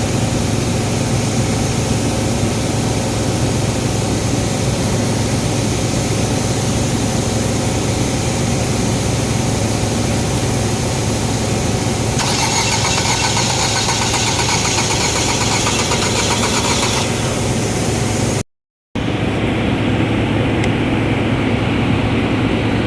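Ford EcoSport engine idling steadily with a low hum; the car has a misfire. About halfway through, a rasping, fast-pulsing noise joins for about five seconds, and near the end the sound drops out for a moment.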